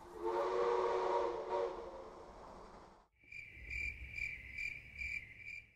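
Intro logo sound effects: a swelling whoosh with a low sustained chord that fades out about three seconds in. It is followed by a high, thin chirping tone that pulses about two and a half times a second, cricket-like.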